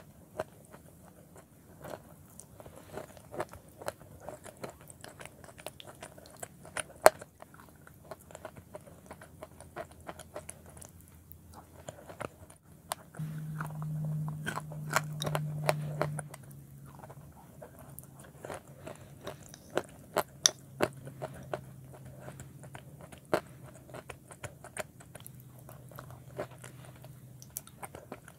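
Close chewing and crunching of chalk pieces mixed with clay paste, with sharp, irregular crunches throughout. A low steady hum sounds for about three seconds midway.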